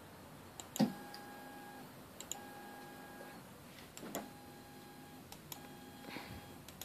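A 3D printer's extruder stepper motor running in reverse to retract filament, in about five short runs of roughly a second each with a steady whine. Each run starts just after a sharp click.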